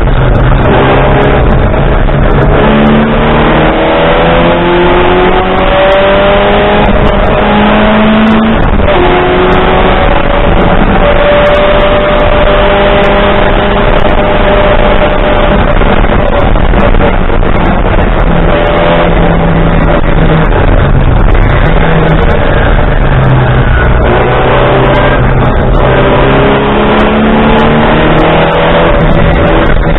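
Historic saloon race car's engine heard from inside the cockpit at racing speed. Its note climbs in repeated rising sweeps that break off and drop back at each gear change. It holds a high steady note for a few seconds in the middle, then a lower one, and rises again near the end, over heavy wind and road noise.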